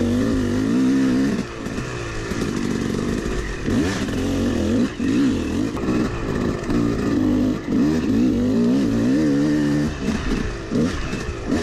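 Yamaha 250 two-stroke dirt bike engine being ridden on a trail, its revs rising and falling constantly with the throttle, with brief dips between blips.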